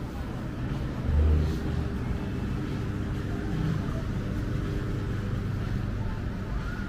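Low rumble of a motor vehicle engine running nearby, with a brief louder low bump about a second in.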